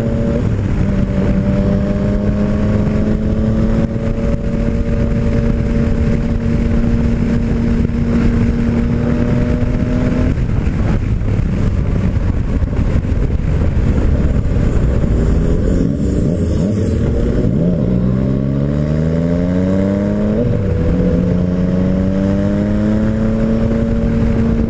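Yamaha MT-09 Tracer's 847 cc inline three-cylinder engine running at highway speed, with wind rush over the helmet-mounted microphone. The engine note holds and slowly rises, drops about ten seconds in, climbs steeply a few seconds later, breaks off around twenty seconds in and climbs again near the end.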